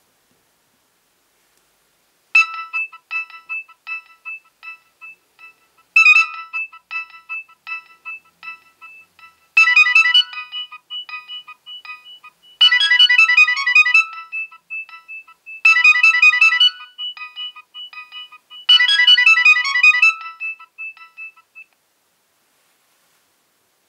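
Nokia 6820a mobile phone playing a ringtone: a bright electronic melody in six repeating phrases, each opening with a loud accented note followed by quicker, fading notes. It starts about two seconds in and stops shortly before the end.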